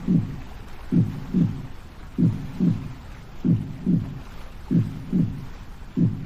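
Slow heartbeat sound: a steady double thump, lub-dub, repeating about every one and a quarter seconds, over a faint steady hiss.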